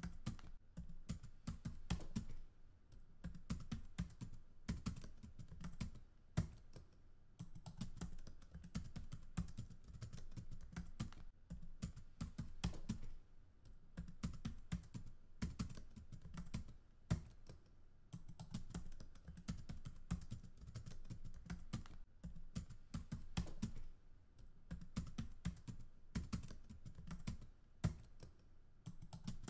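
Typing on a computer keyboard: rapid runs of key clicks broken by short pauses.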